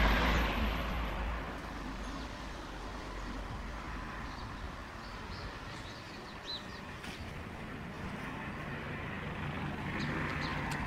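Distant helicopter droning steadily overhead with a low rumble, after a louder rushing swell at the very start that fades over the first second or two. A few faint high chirps come through in the middle.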